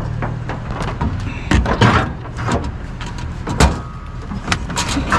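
Metal scrap being handled and loaded: a run of clanks and knocks, a few ringing briefly, over a vehicle engine idling steadily.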